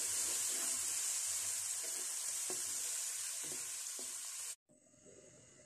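Potatoes and bitter gourd sizzling in oil as they are stirred in a metal pan, with a few soft knocks of the stirring utensil. The sizzle cuts off suddenly about four and a half seconds in.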